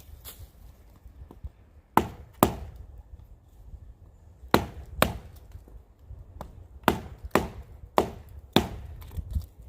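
Pocket knife blade chopping into the dry wood of a dead standing tree: about eight sharp strikes, mostly in pairs about half a second apart, with short pauses between the pairs.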